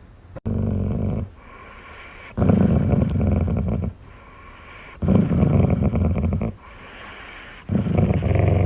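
A dog making long, low rumbling sounds, four times at an even pace roughly every two and a half seconds.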